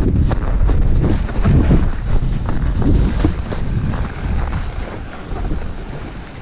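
Wind rumbling on the microphone over irregular crunching and scraping of steps and gear moving across snow.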